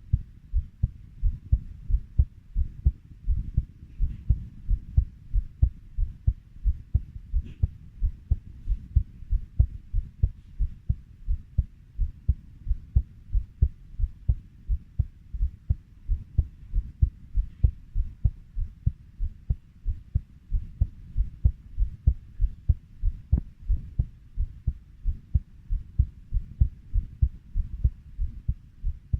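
A human heartbeat beating steadily at 90 beats per minute: an even run of low, dull thumps.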